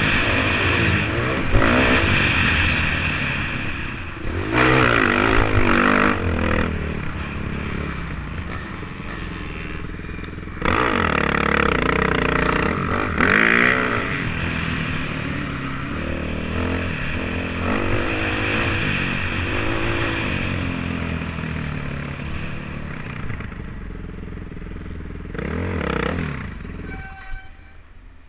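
KTM dirt bike engine running under the rider, revving up and falling back repeatedly as the throttle is worked, then settling to lower throttle and dropping away just before the end.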